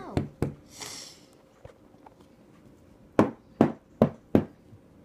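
Four quick knocks on a hard surface about three seconds in, evenly spaced about a third of a second apart, like knocking at a door. Two lighter taps come right at the start.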